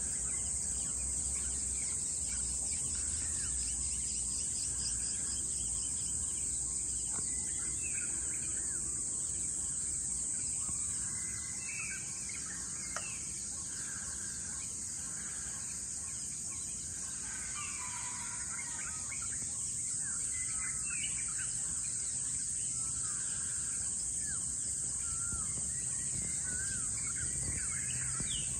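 Dawn chorus: many scattered bird chirps and short swooping whistles over a steady high-pitched insect drone, with a low rumble underneath.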